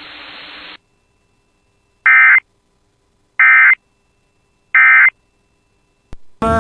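Weather-radio hiss cuts off, then three short bursts of screechy digital data tones come about 1.3 seconds apart. This is the EAS/SAME end-of-message code, sent three times to mark the end of the alert broadcast.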